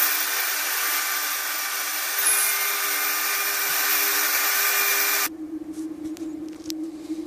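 CNC router spindle milling aluminium checker plate: a loud, dense cutting hiss over a steady spindle whine. About five seconds in the cutting noise stops abruptly, leaving a quieter steady hum with a few faint clicks.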